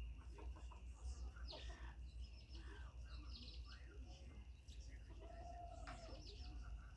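Chickens calling faintly, with scattered short chirps and one longer held call note about five seconds in, over a steady low rumble.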